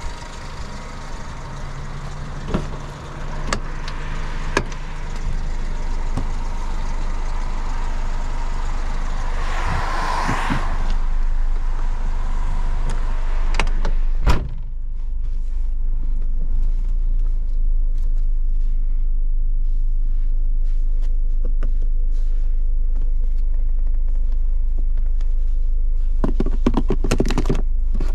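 1999 Honda HR-V's 1.6-litre four-cylinder with CVT idling with a steady hum, then the car moving off, a low rumble building and holding steady. A sharp click comes about halfway through, and a short burst of rattling comes near the end.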